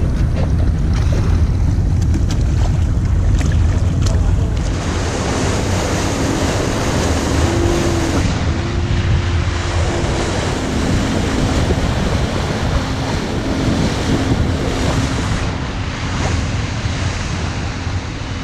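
Motorboat under way: wind buffeting the microphone and water rushing along the hull, over a steady low rumble. The rush turns brighter and hissier about four seconds in.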